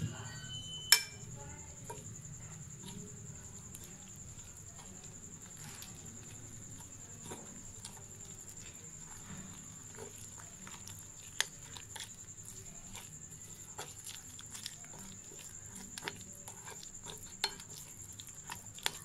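A spoon stirring thick gram-flour batter in a glass bowl: soft wet squelching with small irregular clinks of the spoon against the glass, and one sharper clink about a second in.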